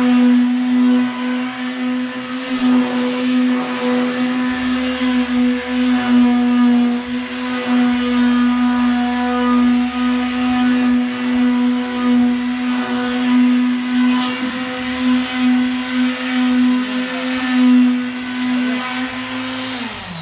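Small electric motor running at a steady high speed, with a constant hum and whine. It is switched off near the end and winds down, its pitch falling.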